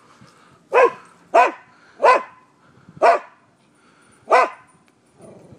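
A dog barking aggressively: five short, sharp barks spaced roughly a second apart, each rising and falling in pitch.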